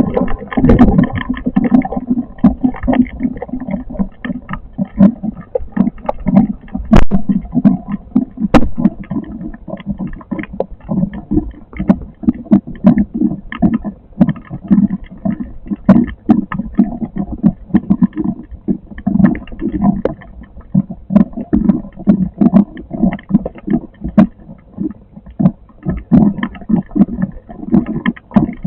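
Storm wind gusting hard on the microphone: a loud, irregular low rumble that surges and fades, with scattered sharp knocks and cracks throughout.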